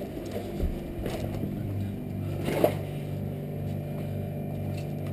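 Steady low hum of running industrial plant machinery, with a slow regular pulsing in its lowest tone, and a single sharp click about two and a half seconds in.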